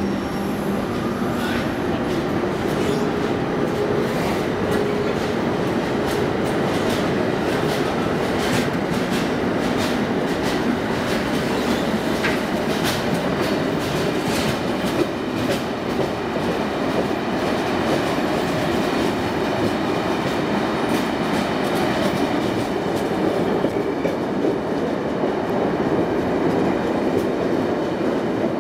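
Amtrak Amfleet passenger cars rolling past along the platform: a steady rumble and rush of the train, with the wheels clicking over rail joints many times.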